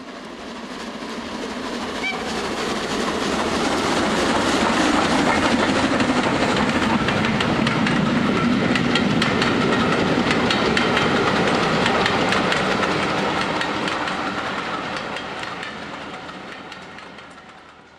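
Train running past on the rails, its wheels clicking over the rail joints. It grows louder, holds, then fades away near the end.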